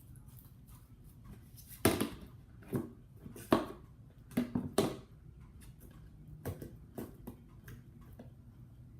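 Slime being kneaded and stretched by hand, giving irregular sharp squishes and pops, several in a cluster between about two and five seconds in and a couple more near seven seconds.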